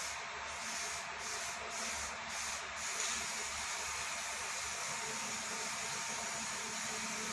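Aerosol can of black spray paint hissing as paint is sprayed onto a ceiling panel. It is broken by a few brief pauses in the first three seconds, then runs as one steady hiss.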